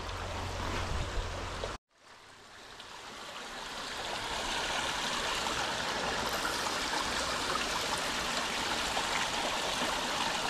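Shallow creek water running and trickling steadily, with water spilling from a concrete culvert pipe. The sound cuts out abruptly just under two seconds in, then fades back up to a steady rush.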